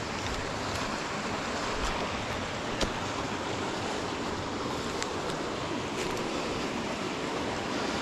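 Mountain stream rushing over rocks, a steady, even sound of running water, with a couple of faint clicks.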